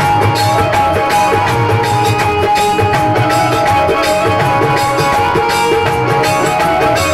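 Live music from a small stage band playing a Bhojpuri song: electronic keyboard holding sustained tones over a steady drum and percussion beat.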